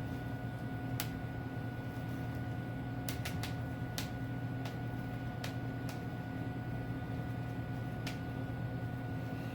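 Bubble wrap being popped: single sharp pops every second or two, with a quick run of three about three seconds in, over a steady low hum.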